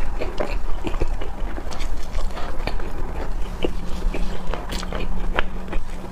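Close-miked chewing of soft bread, with irregular wet mouth clicks and smacks. A faint steady low hum comes in about halfway through.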